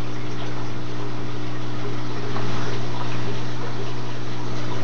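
Reef aquarium's pumps running with a steady low hum, along with the rush of circulating water.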